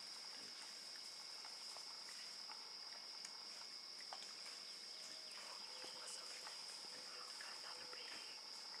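Steady high-pitched drone of an insect chorus, with a few faint clicks and snaps over it.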